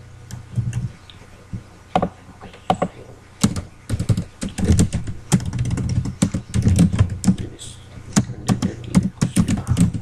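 Typing on a computer keyboard: irregular keystrokes, sparse at first, then a dense run of quick keystrokes from a few seconds in.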